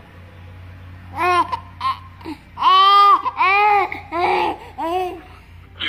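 An 11-month-old baby babbling: a string of about six drawn-out, high-pitched vocal sounds that rise and fall, the longest and loudest about three seconds in.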